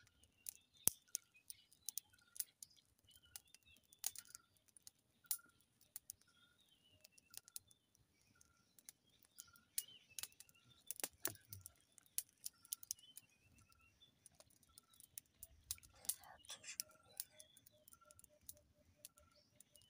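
Wild birds calling: one repeats a short note about twice a second while others chirp, with a lower repeated call near the end. Sharp clicks and pops from a small fire of dry twigs crackling sound throughout.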